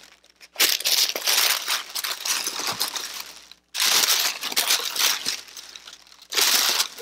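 Tissue paper rustling and crinkling as it is pulled back and handled, in three long stretches with short pauses between.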